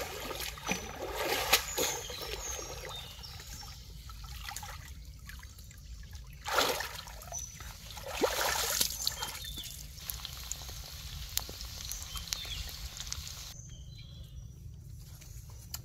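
Water trickling and sloshing, with scattered light clicks and knocks and a few louder splashy bursts.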